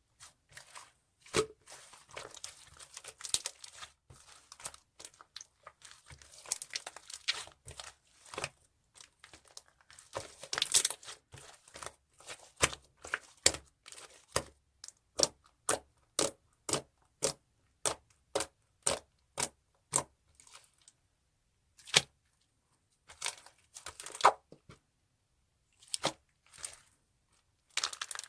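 Mixed slime being squeezed and pressed by hand, giving sharp crackling pops of trapped air. In the middle the pops come evenly, about two a second, with a couple of brief pauses near the end.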